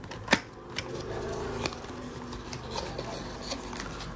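Small cardboard product box being handled and opened by hand: light rustling and scattered clicks of the flaps, with one sharp snap about a third of a second in.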